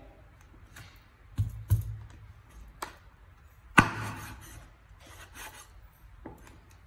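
Cleaver slicing soaked black mushrooms on a wooden chopping board: a few scattered knocks of the blade on the board, the loudest about four seconds in, with some scraping of the blade between cuts.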